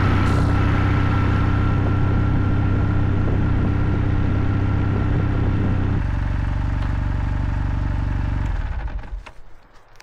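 Kawasaki W800's air-cooled parallel-twin engine running at low speed. Its note changes about six seconds in, and it cuts out about nine seconds in as the bike is stopped and switched off.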